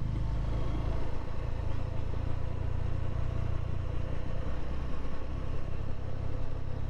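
Honda CB150 Verza motorcycle's single-cylinder engine running steadily while under way, with an even low hum.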